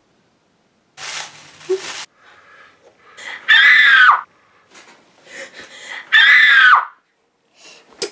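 A girl screams in fright twice, each scream about half a second long, high and falling in pitch at its end, after a short breathy hiss about a second in.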